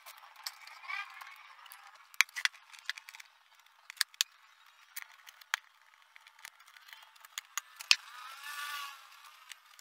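Scattered sharp clicks and taps of a screwdriver and screws against the plastic housing of an LED TV being taken apart, with a faint squeak about a second in and again near the end.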